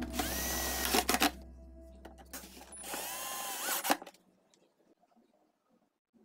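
Cordless drill-driver driving screws into a plastic speaker enclosure in two short runs: the motor whine climbs as it spins up. The first run lasts about a second, and the second, about two seconds in, lasts a second and a half.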